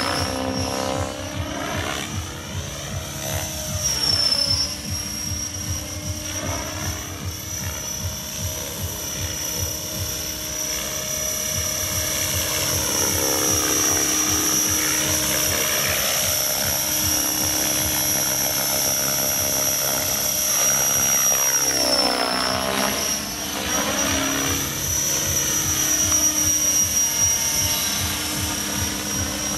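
Radio-controlled model helicopter flying: a steady high whine over the fast chop of the rotor blades. The sound keeps shifting and swelling as the helicopter moves about near the microphone.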